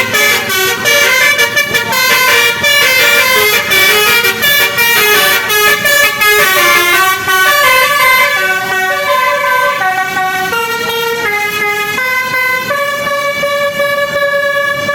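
Basuri multi-note bus horn (telolet) playing a tune: quick short notes in the first half, then longer held notes.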